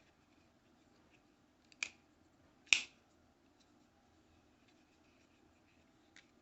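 Benchmade Griptilian 551 folding knife's spring-loaded AXIS lock clicking as the blade is worked open and shut: two sharp clicks about a second apart, the second the louder, then a faint click near the end.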